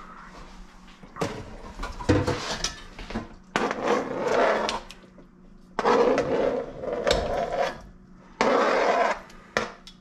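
Metal tongs scraping chopped sausage pieces off a cutting board into a pot of tomato sauce, in about five separate scrapes with clicks and clatters between them.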